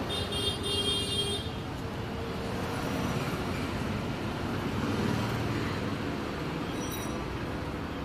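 Steady rumble of motor traffic, with a brief high-pitched tone about half a second in.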